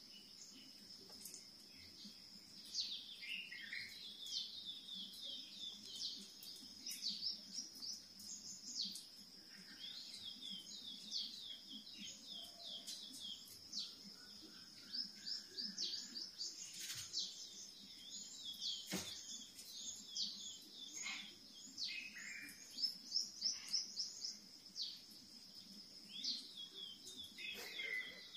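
Recorded birdsong playing from a television: repeated quick runs of high chirps and trills over a steady high-pitched ring, with a faint low hum beneath and a couple of sharp clicks in the middle.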